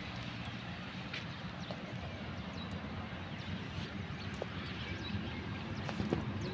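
A low, steady engine drone, with a few faint scattered clicks and knocks.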